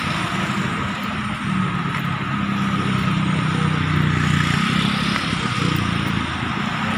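Road traffic: motorcycles and cars driving past close by, a steady engine drone that grows louder around the middle.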